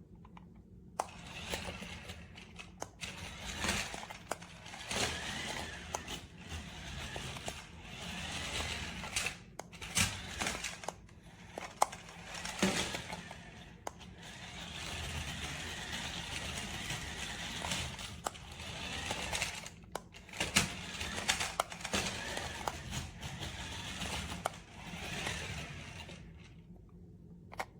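Toy remote-control car driving on a hard floor: its small motor whirring and its plastic body and wheels rattling, with frequent sharp clicks and knocks. The sound starts about a second in and stops shortly before the end.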